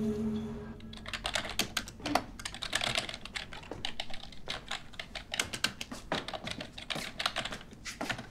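Fast typing on a computer keyboard, a quick uneven run of key clicks with brief pauses, starting about a second in as background music fades away.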